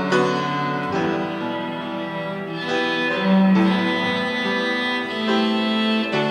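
Cello playing a slow hymn melody with piano accompaniment, in long held notes that change every second or so.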